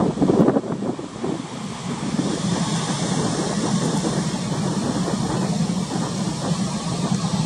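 Wind buffeting the microphone in gusts for about the first second, then a steady rushing noise of wind and choppy sea with a low, even drone underneath.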